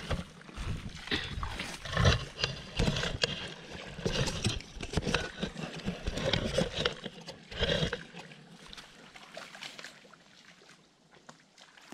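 Irregular splashing and sloshing in shallow muddy water, mixed with rustling and short knocks, busy and loud at first and dying down to a faint background about eight seconds in.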